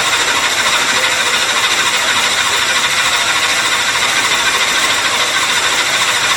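A 1400 HP speedboat engine running loud and steady just after start-up, with no revving.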